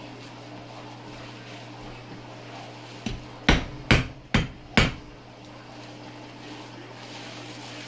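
Meat cleaver chopping into a raw pig's head on a plastic cutting board: a light knock about three seconds in, then four heavy chops about half a second apart.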